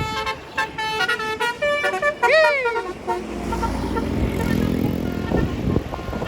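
A tour bus's basuri telolet horn playing a quick tune of short stepped notes that ends in a swooping slide in pitch. After that the bus's engine runs with a low rumble as it passes.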